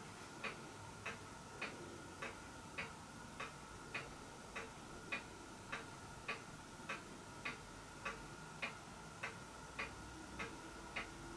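Faint, steady, regular ticking, a little under two ticks a second, over a faint steady hum.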